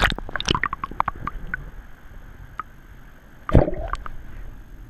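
Water sloshing and gurgling, with scattered small clicks in the first second or so. About three and a half seconds in comes one louder sudden splash or knock.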